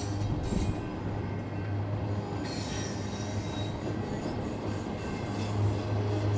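Loaded double-stack intermodal well cars of a freight train rolling past, a steady rumble and clatter of steel wheels on rail, with thin high-pitched wheel squeals coming and going, clearest around the middle.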